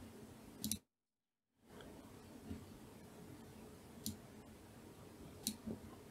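A few sparse computer mouse and keyboard clicks over faint room hiss, the loudest a quick double click just before a second in. The audio drops out to dead silence for under a second near the start.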